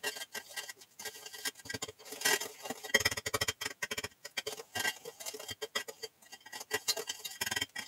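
Stainless-steel wire whisk beating softened butter and sugar by hand in a bowl: a fast, irregular run of clicks and scrapes as the wires strike the bowl, the creaming stage of the biscuit dough.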